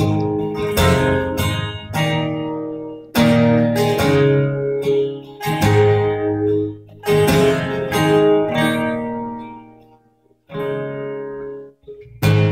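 Acoustic guitar strumming chords in a song's intro, each chord struck and left to ring, with a short pause near the end, heard through a phone's microphone.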